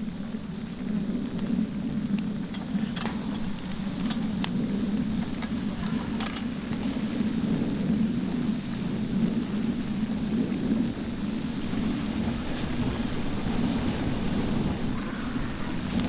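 Wood campfire burning with a low, steady rushing sound and a few scattered sharp crackles.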